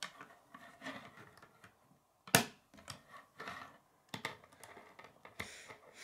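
Plastic K'nex rods and connectors clicking and clacking as they are pushed together and set down on a wooden table. A few sharp clicks stand out among softer handling noises, the loudest about two seconds in.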